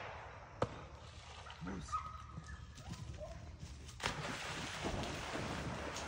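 A retriever splashing into a pond about four seconds in, then churning water as it starts swimming out. Earlier, a single sharp click.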